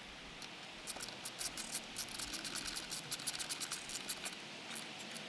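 Socket ratchet clicking rapidly as it tightens the bolt of a small engine-bay bracket. The quick run of clicks starts about a second in and stops shortly before the end.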